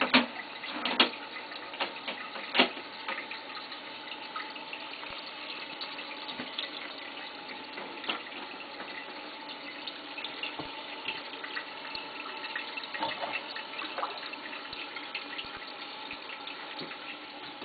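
Kohler Wellworth toilet refilling after a flush, water running steadily into a clogged bowl that is full to the rim and not draining. A few sharp splashes or knocks come in the first three seconds and again briefly later on.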